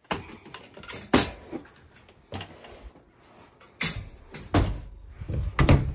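Knocks and clatter of animal crates and gear being handled. There is a sharp knock about a second in and several more in the last two seconds, the way a crate door or lid sounds when it shuts.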